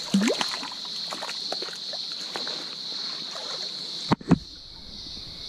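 A hooked trout splashing and thrashing in shallow stream water close by, small wet splashes coming on and off, over a steady high-pitched insect drone. A single sharp knock sounds about four seconds in.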